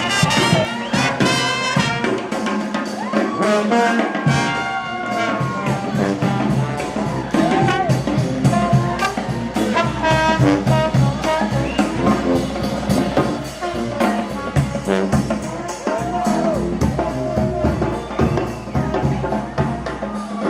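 New Orleans–style brass jazz: trumpet and trombone playing over a band, with sliding notes, and a low bass line joining in about four seconds in.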